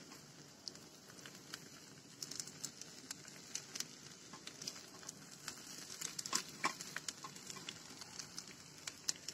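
Diced potatoes and onion frying in a pan: a soft steady sizzle with many small crackles, and light scrapes and taps of a silicone spatula stirring them.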